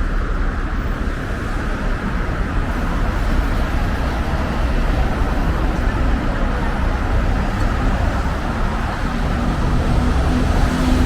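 Steady street traffic noise from cars on a city road, with a vehicle engine drone coming in near the end.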